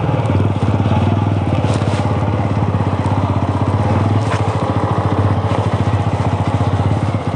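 Motorcycle engine running at low revs with a steady, fast chugging pulse, with a couple of sharp knocks about two and four seconds in.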